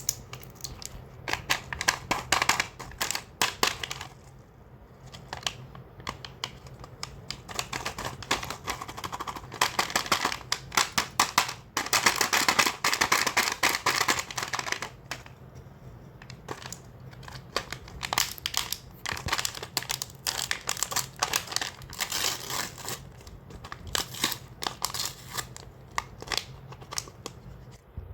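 Plastic candy wrappers crinkling and tearing as the packets are handled and opened, with many irregular sharp clicks. The crinkling is busiest around the middle.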